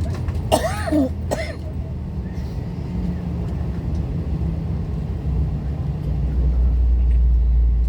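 Airbus A321-200 cabin noise: a steady low rumble from the jet engines, growing louder about six seconds in. A short vocal sound like a throat clearing comes in about half a second in.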